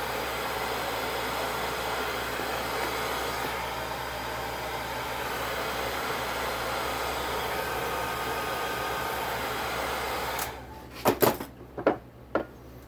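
Heat gun blowing steadily on an engine crankcase's steel-cage main bearing to expand it before the crankshaft goes in. It shuts off about ten seconds in, and a few sharp metallic clinks and knocks follow.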